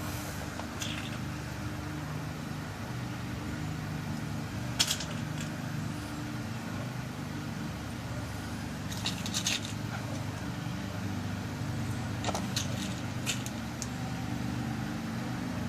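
Scattered small sharp clicks, single and in brief clusters, as tiny pins are dropped into a lock cylinder being rekeyed. A steady low hum runs underneath.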